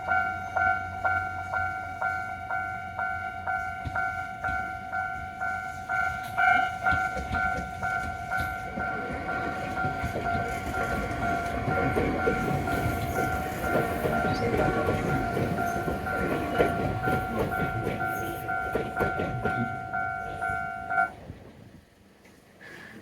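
Level crossing warning bell ringing its repeated kan-kan, about two strikes a second, while a train passes over the crossing, its wheels rumbling and clacking on the rails for most of the second half. The bell stops about two seconds before the end.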